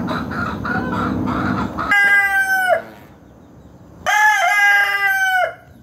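A rooster crows twice: a short crow about two seconds in and a longer one about four seconds in, each ending in a falling note. Before the crows there is a rough, pulsing sound.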